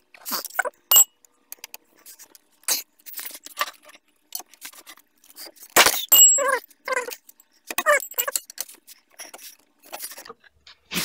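Hand tools clinking and knocking on a brake caliper bracket bolt as a socket, torque-angle gauge and long wrench are set on it, with several short squeaky creaks about six to eight seconds in.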